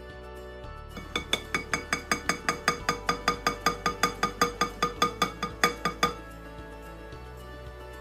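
A small mesh sieve tapped rapidly and evenly against the rim of a glass mixing bowl to shake flour through, about five clinks a second, starting about a second in and stopping near six seconds. Soft background music plays underneath.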